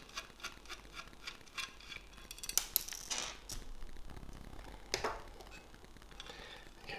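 Small quick clicks as a screw is turned out of a metal device case with a precision screwdriver, then a short scraping rustle and a single light knock as the screw and screwdriver are put down on a wooden tabletop.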